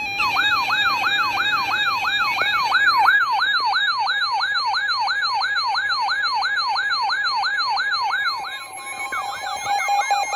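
Weather radio's electronic alert siren: a repeating rising whoop, about three a second, over a steady tone, turning faster near the end with a second steady tone added. It signals an incoming Civil Emergency Message alert.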